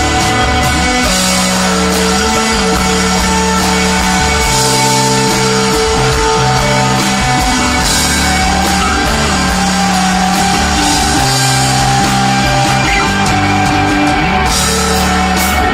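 A live rock band plays an instrumental passage: sustained electric guitar and bass notes shift every second or two over drums, and quick cymbal hits come in near the end.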